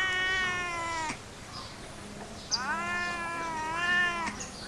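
Domestic cat meowing: a long meow already under way ends about a second in, and a second long, drawn-out meow follows about two and a half seconds in and lasts nearly two seconds.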